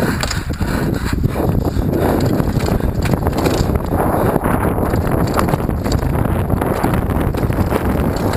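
Wind buffeting a helmet camera's microphone as a downhill mountain bike runs fast over a rough dirt track, its tyres and frame rattling and knocking over the bumps.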